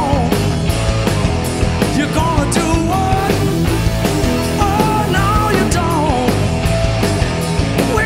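Rock band playing live in the studio: drums and bass keep a driving beat under a lead line whose notes bend in pitch.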